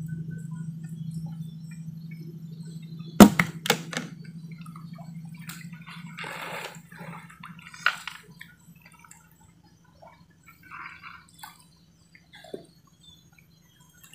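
Gill net being hauled by hand out of a river into a small boat: water drips and trickles off the mesh, with a few sharp knocks a little after three and four seconds in and again near eight seconds. A steady low hum underneath fades out about seven seconds in.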